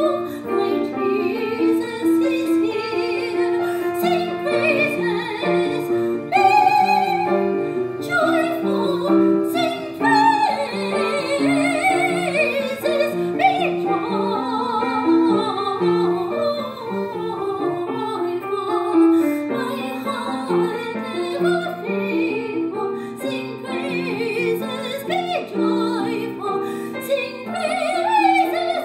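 A singer in a classical, operatic style with vibrato, accompanied by piano.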